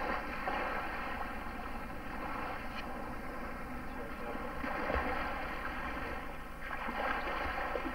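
Ski boat's motor running steadily as the boat pulls away from the shore.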